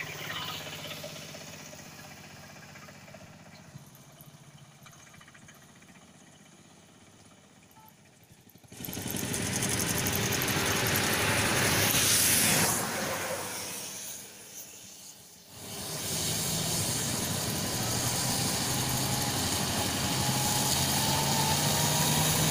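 Vehicles passing on a wet road: a loud, steady tyre hiss starts abruptly about nine seconds in, dips for a moment, then returns with a low engine hum as another vehicle approaches.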